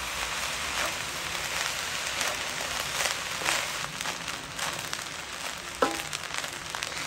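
Fried rice sizzling in a wide pan as it is tossed with a wooden spatula, with scattered scrapes and taps of the spatula on the pan. The rice is frying just after fish sauce has been poured over it.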